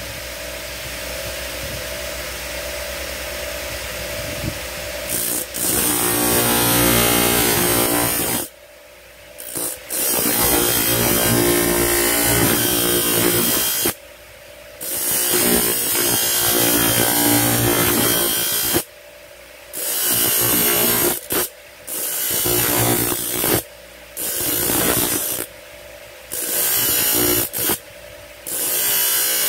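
Motor-driven grinding wheel running steadily, then grinding a small metal gaff blank from about five seconds in. The grinding comes in repeated passes, with several short breaks where the piece is lifted off and only the spinning wheel is heard. This is the inner part of the blank being ground out to shape it.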